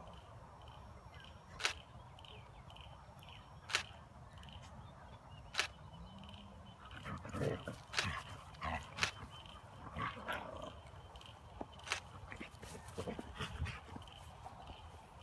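Husky puppy and adult huskies play-fighting. Short dog growls and yips cluster from about six to ten seconds in, with sharp clicks scattered throughout.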